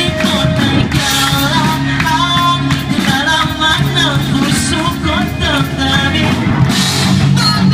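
Live rock band playing loud: electric guitars, bass and drums with sung vocals.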